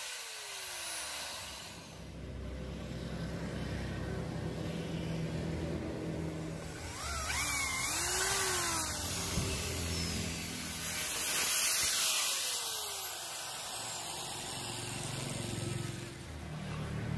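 Power tools on wood: an angle grinder winding down with a falling whine, then an electric drill boring into a wooden handle scale, its whine rising and falling with the trigger before winding down again. A steady low hum runs underneath.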